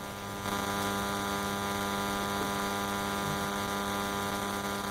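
Steady electrical mains hum, a buzz made of many evenly spaced overtones, with no speech.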